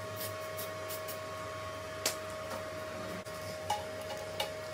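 A steady hum with one constant tone, broken by a few light, sharp clicks and taps, the sharpest about two seconds in.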